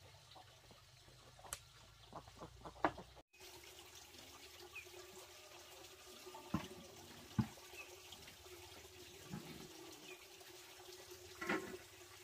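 Pots and a basin being handled at a clay stove: a few scattered clicks, then single knocks and clunks, over a faint steady wash of running or trickling water.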